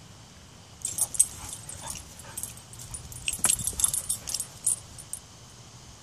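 Dog whining and whimpering in a run of short, high-pitched bursts, starting about a second in and stopping shortly before the end.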